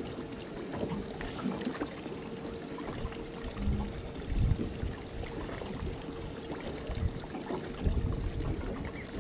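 Steady hum of a boat's live-bait tank pump, with water pouring into the tank to fill it. A few low knocks come through about halfway and again near the end.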